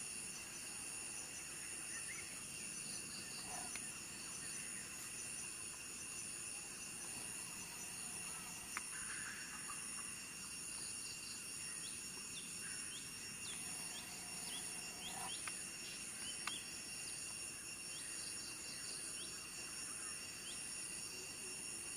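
Steady chorus of insects buzzing at several high pitches, with short, high, falling bird chirps repeating from about halfway in to near the end, and a couple of faint clicks.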